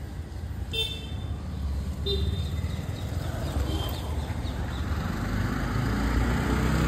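A motor vehicle's engine running on a street, a low rumble that grows steadily louder as it draws closer.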